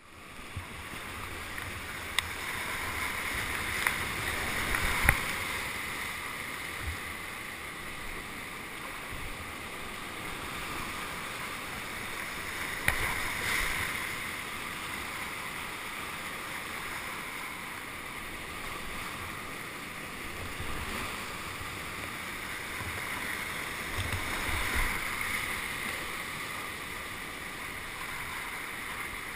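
Steady rush of whitewater, swelling and easing a few times, with several sharp knocks at intervals.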